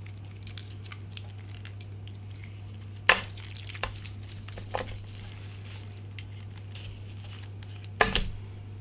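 Plastic packaging crinkling and a few light clicks as a bundle of charging cables with alligator clips and plugs is handled. A louder clatter comes about eight seconds in as the bundle is set down on the bubble-wrapped panel. A steady low hum runs underneath.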